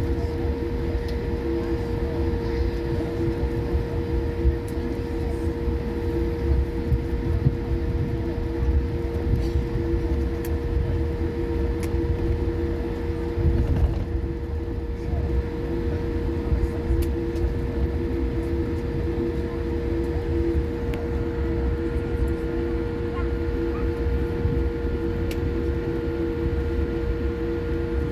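Jet airliner cabin noise while taxiing, heard from inside the cabin: a steady engine hum with a few held tones over a low rumble. A faint higher tone joins about two-thirds of the way through.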